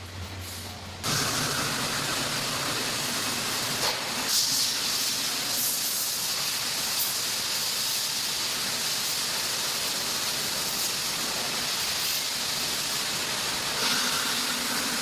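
Sawmill machinery running: a low hum, then a loud, steady hiss that comes in abruptly about a second in.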